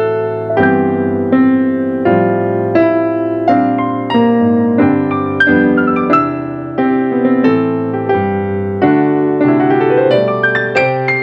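Piano playing: full chords struck in a steady rhythm, about three every two seconds, each one left ringing into the next.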